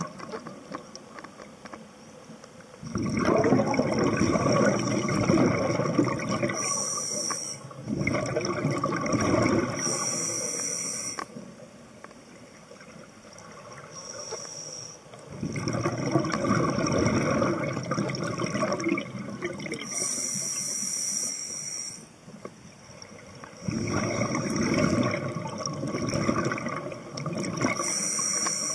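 Scuba diver breathing underwater through a regulator, heard through a camera's underwater housing. There are four long bursts of bubbling from the exhaled air, each with a short high hiss, and quieter gaps between the breaths.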